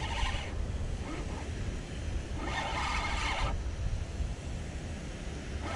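Fishing reel being cranked in three short bursts of whirring as a hooked snook is reeled in, over a steady low rumble of wind on the microphone.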